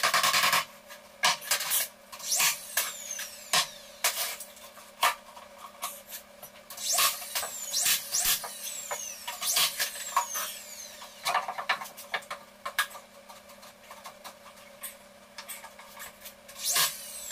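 Irregular knocks, taps and scraping of pine framing boards and hand tools, with a loud cluster at the start and another near the end.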